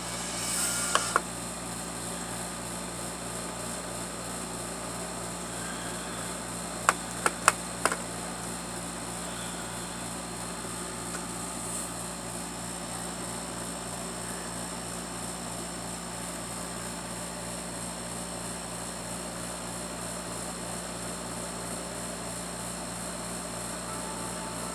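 Steady whir of a small motor with a regular low pulse, broken by two sharp clicks about a second in and three more clicks around seven to eight seconds in.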